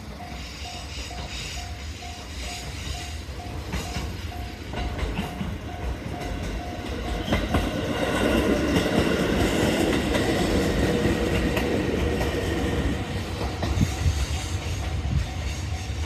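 A level-crossing alarm rings with a steady on-off tone of about two beats a second while a JR East 719 series 5000 electric train comes up and passes, its wheels clattering on the rails. The passing is loudest about 8 to 13 seconds in, and the alarm is heard again near the end.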